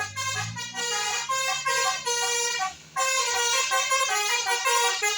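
Multi-tone 'telolet' horn on a passing bus playing a quick tune of stepped pitched notes, with a short break about three seconds in.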